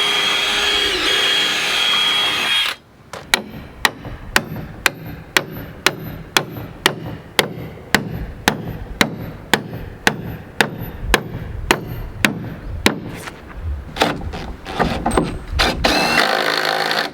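A power drill runs with a steady high whine and stops about three seconds in. Then come sharp, evenly spaced hammer blows, about two a second for roughly ten seconds. A loud burst of noise follows near the end.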